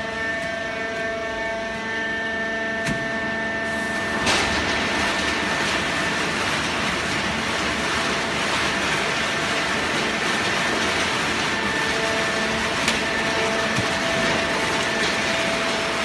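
Hydraulic horizontal paper baler running: a steady machine hum with several held tones from its motor and hydraulic pump. About four seconds in a click sounds and a louder, even rushing noise sets in and keeps on, partly covering the tones.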